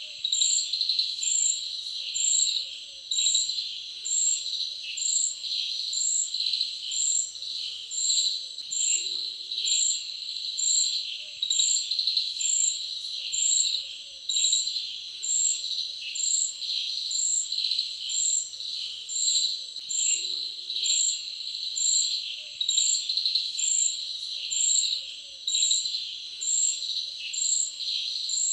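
Crickets chirping in a dense steady chorus, with one higher chirp repeating evenly about three times every two seconds.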